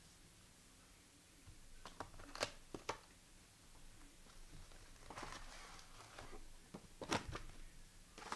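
Basketball trading card packs being opened and the cards handled: foil wrappers crinkling and tearing, with a few sharp taps of cards a couple of seconds in and again about seven seconds in.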